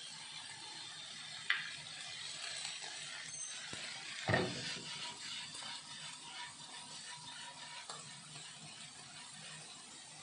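Homemade fettuccine sizzling faintly in a frying pan as the pan is tossed. There is a sharp knock about a second and a half in and a louder one about four seconds in.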